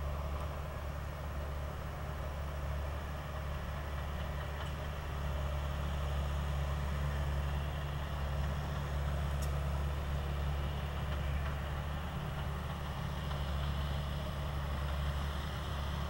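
John Deere 450 crawler dozer's engine running steadily, a continuous low hum that grows slightly louder about five seconds in.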